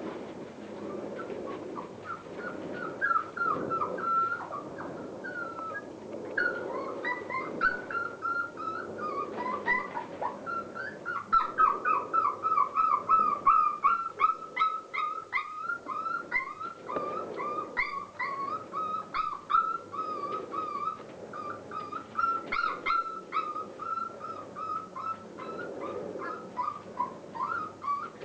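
Border Collie puppies about five weeks old whimpering and yipping in a string of short, high-pitched squeals, which come thicker and louder from about eleven seconds in.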